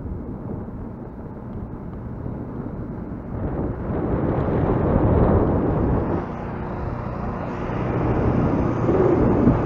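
Wind rushing over the camera microphone with road noise from a moving bicycle, swelling about four seconds in and again near the end.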